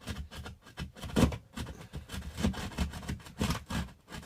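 A hand blade sawing through drywall in short back-and-forth strokes, about three a second, as the cut runs up the side of an electrical box opening.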